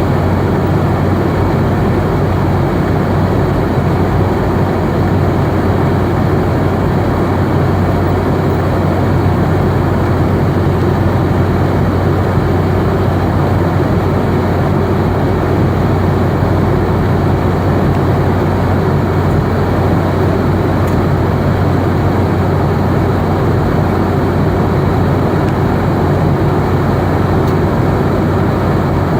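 Boeing 717 cabin noise in flight: the steady rush of air and the drone of its rear-mounted BR715 turbofan engines, with a constant low hum underneath.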